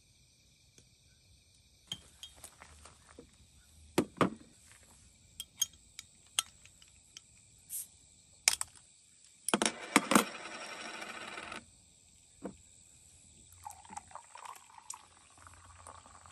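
Glass beer bottles and a metal bottle opener clinking and knocking on a folding table, a bottle cap prised off with a short hiss just past the middle, then beer poured from the bottle into a cup near the end.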